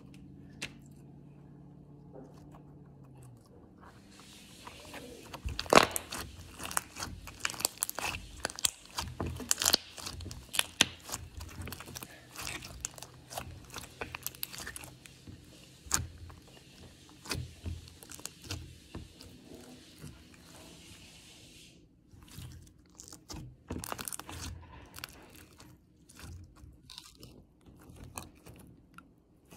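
Clear slime being squished and poked by hand, making many quick wet clicks and pops. The clicking is densest from about four seconds in to about twenty-two seconds in, then thins out.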